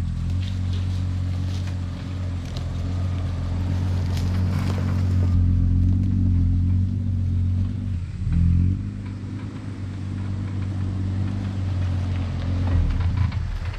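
Toyota 80 series LandCruiser driving: a steady low engine drone, with a brief dip and change in pitch about eight seconds in.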